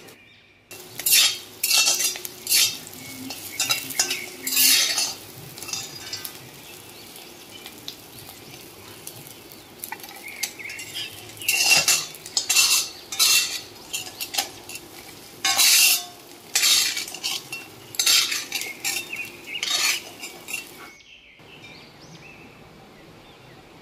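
A flat metal spatula scraping and stirring in a wok, with irregular loud scrapes and clatters over a steady sizzle of frying oil. After about 21 seconds only a quieter, even sizzle of hot oil remains.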